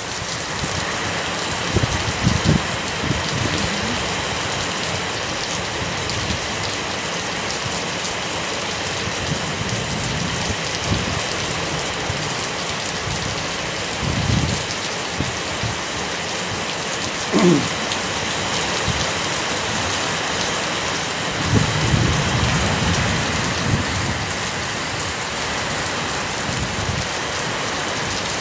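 Heavy rain falling steadily on wet concrete, lawn and trees, with a few short low rumbles standing out from it.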